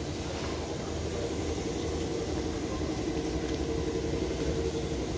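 An engine idling steadily: a low, even hum with a constant mid-pitched tone over it.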